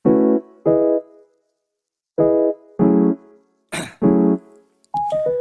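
Piano music: short chords played one at a time with pauses between them, about five in all, ending with a quick run of falling notes.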